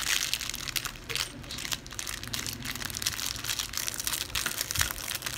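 Small plastic bag of LEGO parts crinkling and rustling as it is pulled and torn open by hand: a dense run of irregular crackles.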